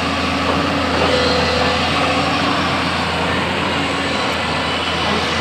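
Heavy diesel construction machinery running steadily, a constant low engine drone under a noisy mechanical wash.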